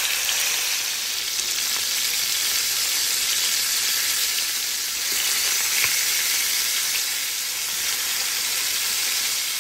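Chicken drumsticks sizzling steadily in hot oil in a frying pan as they brown, with a couple of faint clicks about five and six seconds in.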